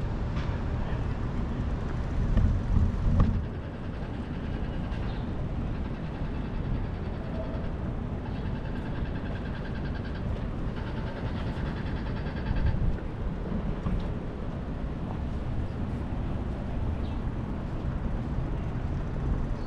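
Wind rumbling on the microphone of a moving bicycle, over city street traffic, with a louder gust about two to three seconds in.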